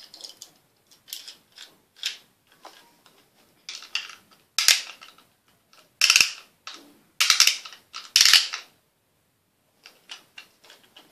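Plastic Beyblade ripcord launchers ratcheting and clicking in short bursts as the ripcords are fed through and the tops readied, with the loudest bursts about halfway through.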